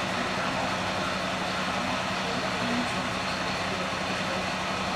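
Vehicle engine idling steadily: a constant low hum under an even hiss.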